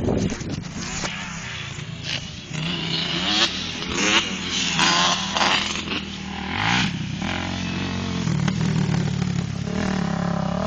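ATV engines revving on a dirt track: the pitch rises and falls several times in the middle as the throttle is opened and shut, then the engine settles into a steadier run near the end.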